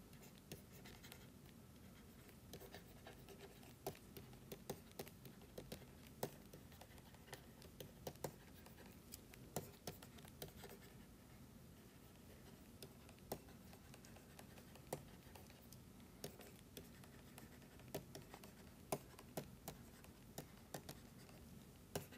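Faint, irregular taps and light scratches of a stylus writing on a tablet screen, over a low steady hum.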